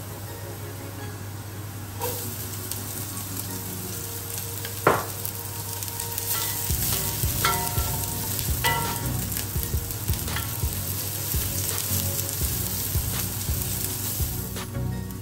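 Diced shallots, garlic, carrot and celery sizzling in oil in an enamelled cast-iron casserole, with a spoon stirring them and knocking against the pot a few times. The sizzle picks up about two seconds in.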